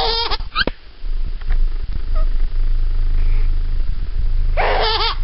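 A baby gives a short high-pitched giggle or squeal at the start and another near the end. A steady low rumble runs underneath.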